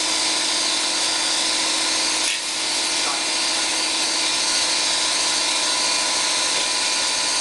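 A shop machine runs steadily with a hissing whir, dipping briefly about two seconds in.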